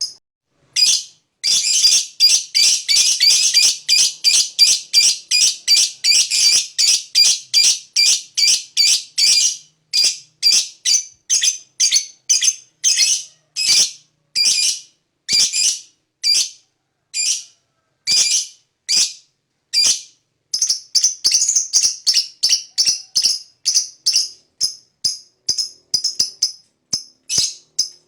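A lovebird's long ngekek song: a long run of shrill, harsh chirps. They come quickly at first, slow to a more spaced-out series in the middle, and quicken again after about twenty seconds.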